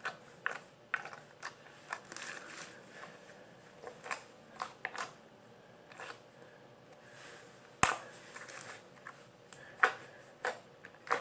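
Handmade slime being squeezed and stretched by hand, giving irregular sharp clicks and pops of trapped air, the loudest pop about eight seconds in.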